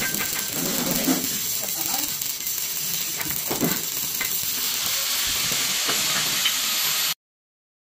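Steady hiss with a few faint clicks and faint voices underneath, cutting off suddenly about seven seconds in.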